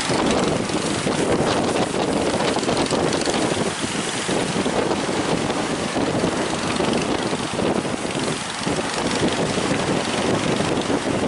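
A boat engine running steadily, mixed with wind buffeting the microphone and the rush of water.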